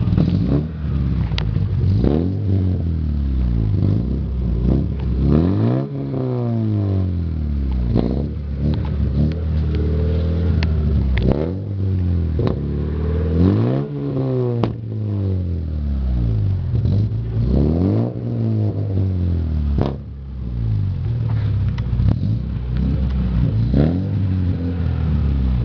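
Volkswagen Polo Classic 1.8 Mi four-cylinder engine with a straight-through exhaust, revved again and again from idle, each blip rising and falling in pitch, loud throughout. A few sharp cracks come between the revs.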